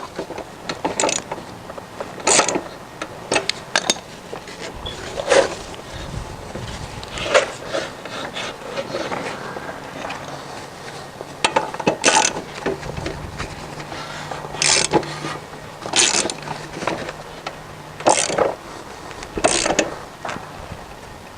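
Ratchet socket wrench clicking as the mulching blade's bolt on a Troy-Bilt TB110 walk-behind mower is tightened, in short bursts of strokes a second or more apart.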